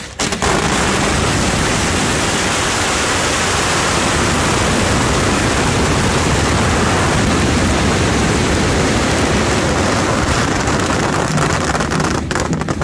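Strings of firecrackers going off in one dense, unbroken crackle that sets in just after the start and stops near the end.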